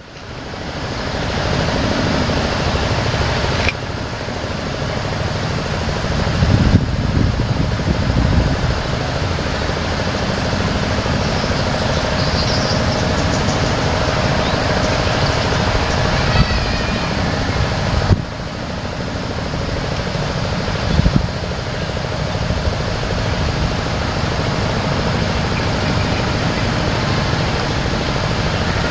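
Steady outdoor rumble and hiss that stays level throughout, with a few faint high chirps midway.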